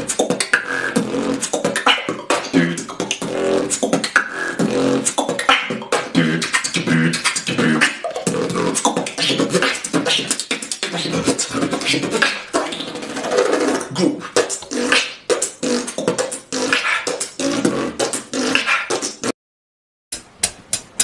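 Human beatboxing: a fast, dense stream of vocal drum sounds, sharp clicks and snare-like hits, with hummed notes mixed in. It cuts off abruptly near the end, followed by a moment of silence.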